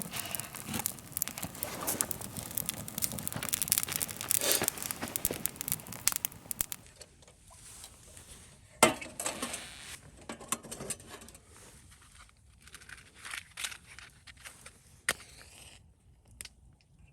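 Crinkling and rustling handling noise, dense for the first seven seconds or so, then thinning to scattered crackles and clicks, with one sharp click a little past the middle.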